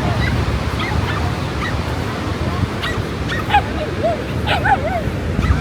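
A dog yipping several times in quick succession, mostly in the second half, over the steady low rush of surf.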